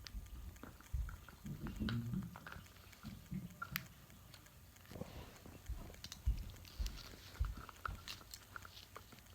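A cockatoo chewing and biting at a toy with its beak: irregular crunching clicks and taps.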